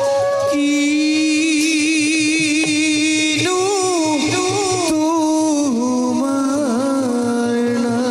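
Bhaona accompaniment music: a sung melody with held, wavering notes over a steady drum beat.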